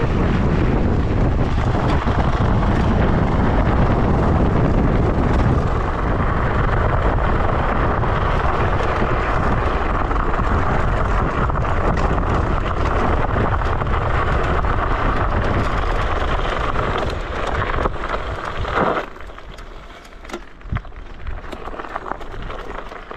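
Wind rushing over the microphone with the rumble of an electric scooter moving along a path. The noise drops sharply about nineteen seconds in.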